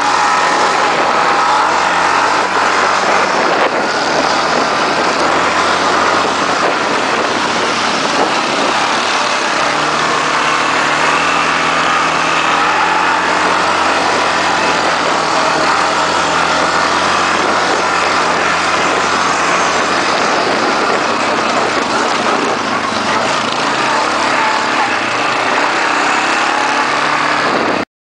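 Quad bike (ATV) engine running while riding a rough dirt and mud track, heard from a camera on the bike. It cuts off suddenly near the end.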